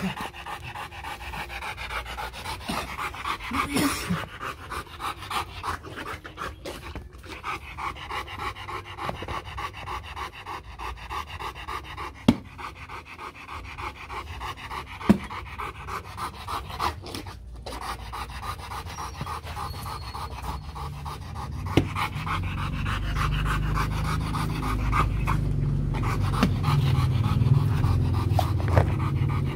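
Rottweiler panting quickly and steadily through an open mouth. A low rumble builds up in the last several seconds.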